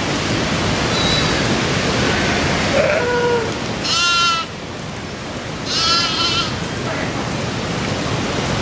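A flock of sheep bleating: two loud, wavering bleats about four and six seconds in, with fainter ones before them, over a steady hiss.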